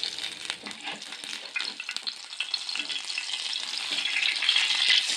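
Batter-coated pumpkin flower fritters (kakharu phula bara) sizzling in shallow oil on a flat tawa, with scrapes and taps of a metal spatula as they are turned. The crackling sizzle grows louder near the end.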